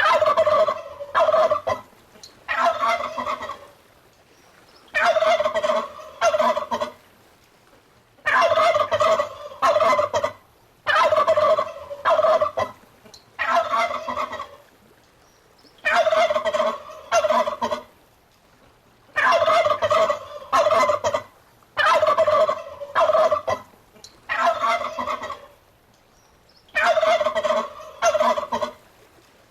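Domestic turkey toms gobbling over and over: each gobble is a rapid, rattling call lasting a second or two, with a fresh one every two to three seconds.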